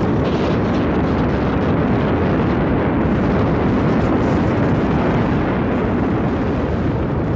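Erupting volcanic vent throwing up lava spatter and glowing fragments: a loud, steady, low rumble without distinct separate blasts.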